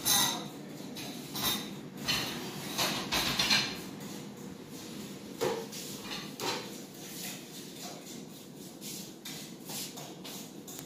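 Kitchen clatter of dishes, pots and utensils being handled: a string of separate knocks and clinks, the loudest right at the start and a cluster from about two to three and a half seconds in.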